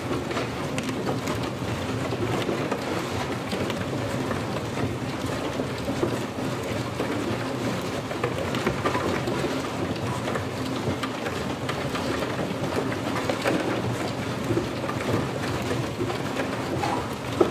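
Dozens of prepared DC motors rattling and tapping against the cardboard of stacked boxes. Together they make a dense, steady mass of fine taps and rustles, with one louder click near the end.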